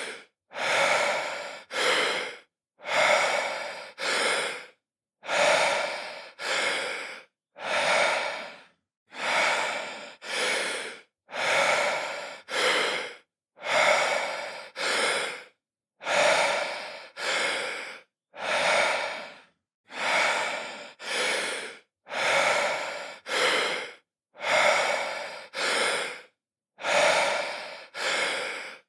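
A man breathing deeply, in and out, about one breath every two seconds. Each breath is a pair of airy rushes with a brief silence after it.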